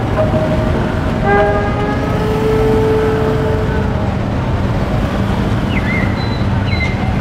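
Motorbike street traffic running close by, a steady engine rumble. A long held horn-like tone sounds in the first few seconds, and a steady low engine hum comes in about four seconds in.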